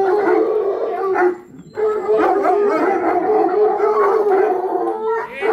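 A large pack of hunting hounds, a cross of English foxhound and French Poitevin, howling together in a continuous chorus of many overlapping voices, with a brief lull about a second and a half in. The pack is worked up at feeding time.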